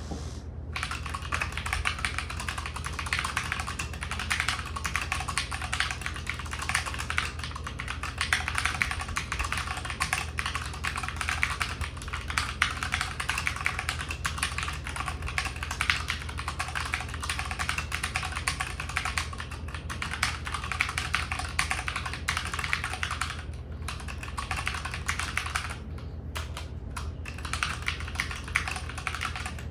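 Keychron C1 tenkeyless mechanical keyboard with Gateron G Pro Red linear switches and double-shot ABS keycaps, typed on fast and without a break: a dense stream of light keystroke clacks, with a couple of short pauses near the end.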